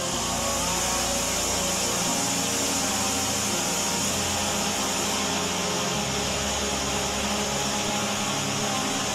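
Chainsaw running steadily as it saws through a sedated white rhino's horn.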